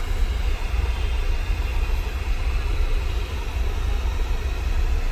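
Steady low rumble of a car's engine and road noise heard from inside the cabin, with city traffic outside.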